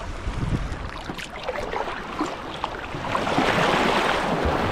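Outdoor water and wind noise: a rushing hiss with a few small ticks, swelling louder about three seconds in.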